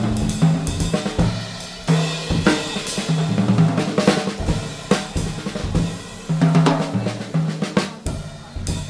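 Jazz drum kit played busily, with snare hits, bass drum and cymbals in an irregular, fast pattern. Short low notes from an upright bass sound underneath.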